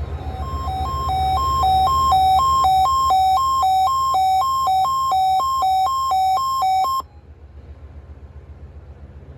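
Weather radio alert alarm sounding for the required weekly test: a loud two-pitch electronic beep alternating between a lower and a higher tone a bit more than twice a second. It cuts off abruptly about seven seconds in, leaving a low hum and hiss.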